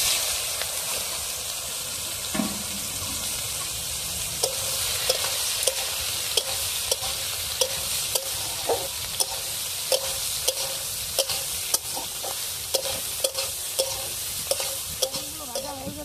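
Soybean chunks frying in hot mustard oil in a kadai: a steady sizzle. From a few seconds in, a utensil knocks and scrapes against the pan about twice a second as they are stirred.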